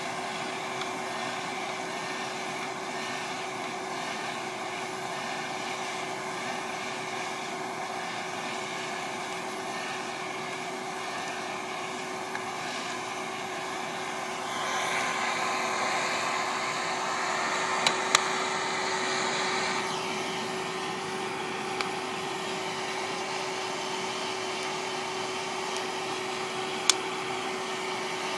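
West Bend Poppery hot-air popper's fan blowing steadily with a constant motor hum as it roasts coffee beans, getting louder for a few seconds about halfway through. A few sharp single cracks sound in the second half.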